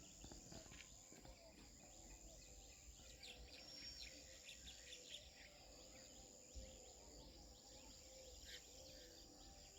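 Near silence: faint outdoor ambience with scattered distant bird chirps and a steady high insect drone.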